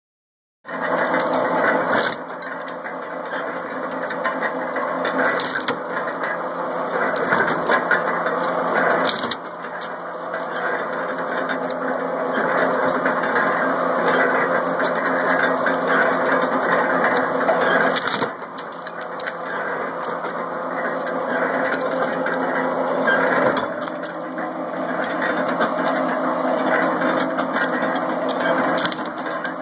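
A scrap-yard alligator shear running with a steady mechanical drone, its jaw chomping through firearms. Sharp metal cracks come about four times as the guns are cut.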